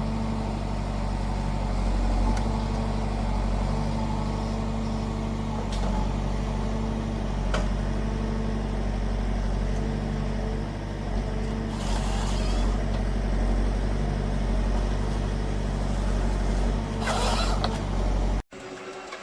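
Diesel engine of a forestry harvester running steadily, with a couple of brief hissing bursts during the work. The sound cuts off abruptly just before the end.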